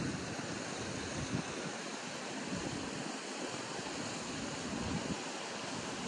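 River water rushing steadily over shallow rapids, with occasional low buffeting of wind on the microphone.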